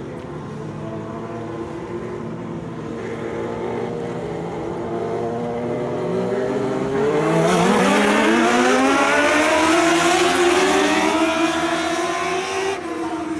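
Engines of a pack of ModLite dirt-track race cars, building revs together; from about halfway through the pitch climbs steeply and the cars run loud as they go by, easing off a little near the end.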